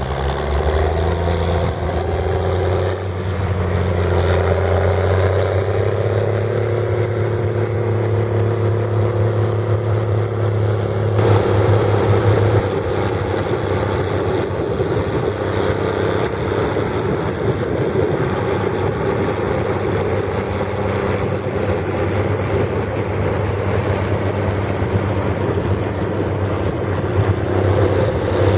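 International 1455 XL tractor's diesel engine running through a straight-pipe stainless exhaust, a steady deep drone; about eleven seconds in its note shifts and turns rougher.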